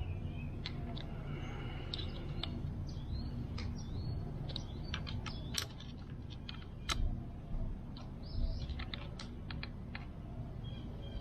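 Irregular small clicks and taps of plastic and metal parts being handled as the trimmer's handle bolts are tightened with an Allen wrench, over a steady low hum.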